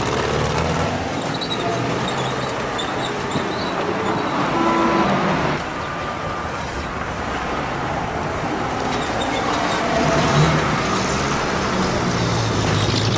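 Road traffic: motor vehicles running over a steady wash of background noise, with a few brief tone-like sounds about four to five seconds in.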